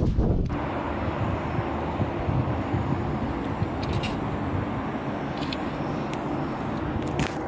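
Steady outdoor background noise, an even hiss-like wash with a few faint ticks, and no speech.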